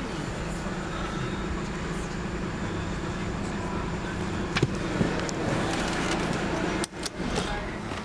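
Mercedes-Benz car's engine idling steadily in park, heard from inside the cabin, with two light clicks about halfway through.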